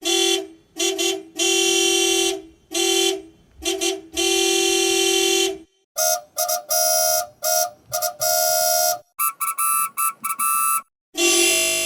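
Taxi horn honking in edited variations. It first sounds two short honks and one long honk, twice over. The same kind of pattern then comes back pitched higher, followed by a run of about eight quick, higher beeps. A new, noisier version starts near the end.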